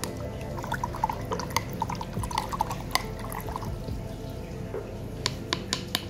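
Turkey baster squirting and drawing water in a plastic mug, stirring a coral treatment bath: a run of bubbly gurgles, drips and small splashes.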